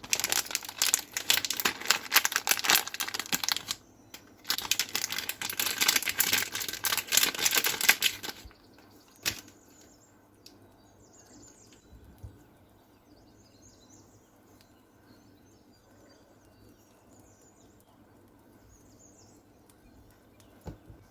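Plastic packaging crinkling and tearing as it is opened, in two dense bursts of about four seconds each. After that it is quiet apart from a single click and faint bird chirps.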